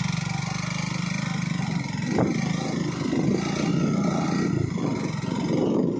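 Motorcycle engine running as the bike is ridden over a dirt track, its note shifting a couple of times with the throttle, with a brief knock about two seconds in.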